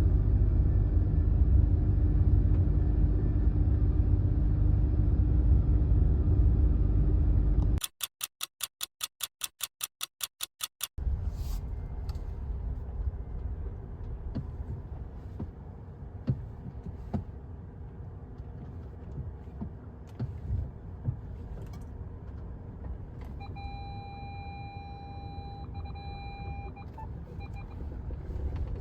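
Steady low rumble of a vehicle on the move. About eight seconds in, a run of rapid, even clicks lasts about three seconds. After that the rumble is quieter, and a short beeping tone sounds twice near the end.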